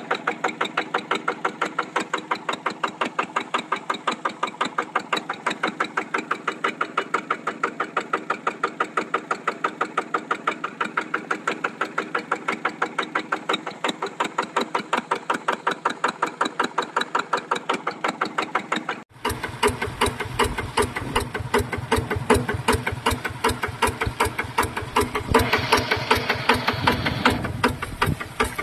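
Yanmar TF150 single-cylinder diesel engine running steadily at pumping speed with an even, regular exhaust beat, belt-driving a water pump. About 19 s in the sound changes abruptly to a heavier, deeper engine beat, and near the end a rush of water pouring from the pump's discharge hose joins it.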